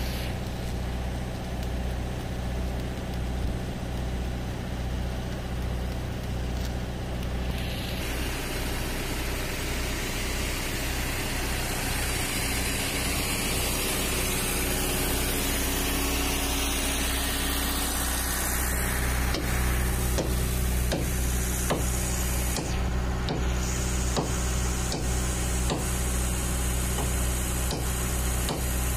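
An engine drones steadily throughout. From about eight seconds in to about nineteen seconds in, a loud hissing rides over it. After that comes a run of sharp, irregular ticks.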